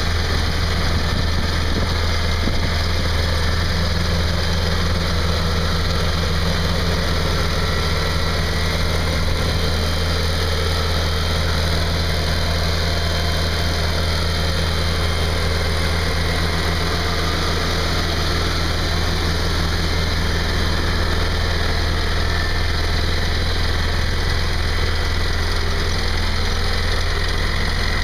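Engine of a Ditch Witch 8020 plow/trencher/backhoe, running steadily at idle with a deep, even hum.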